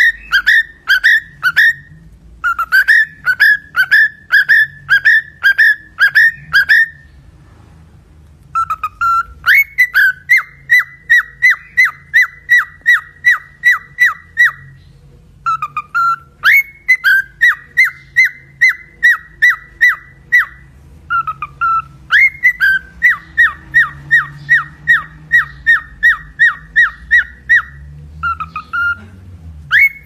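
Cockatiel whistling a song: runs of quick, clear repeated notes, about three to four a second. Each run opens with a lower note that glides upward, and short pauses break the runs.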